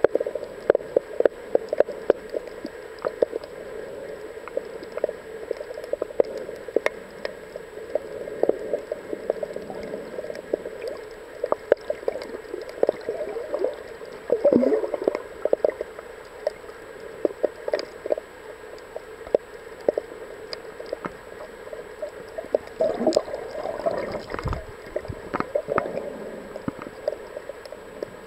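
Underwater ambience recorded with the camera submerged: a steady muffled water noise, scattered with many sharp crackling clicks, and louder gurgling swells about halfway through and again near the end.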